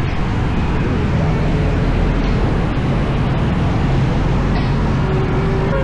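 Motorcycle running on the road: a steady, loud engine and road rumble.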